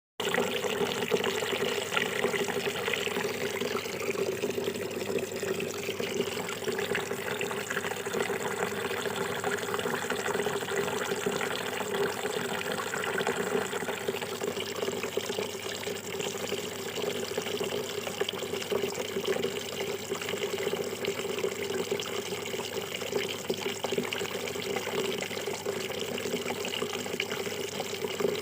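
Water trickling and splashing steadily down a small homemade styrofoam-and-cement waterfall.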